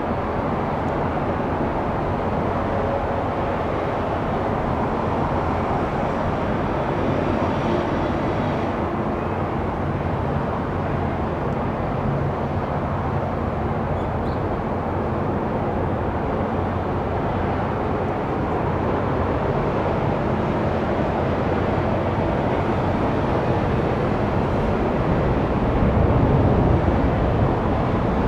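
Jet engines of a Boeing 747-8 running, a steady even rush of noise that grows a little louder and deeper near the end.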